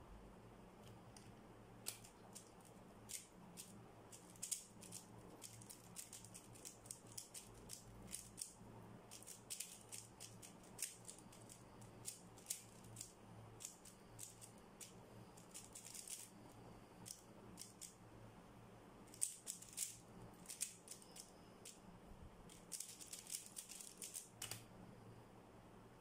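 A 3x3 Rubik's cube being speedsolved: the plastic layers click as they are turned, in quick irregular runs of clicks that begin about two seconds in and stop shortly before the end, densest in the final stretch.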